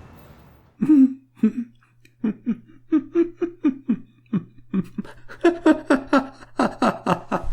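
A person laughing in a long run of short repeated bursts, sparse at first and then quicker and louder in the second half, over a faint steady hum.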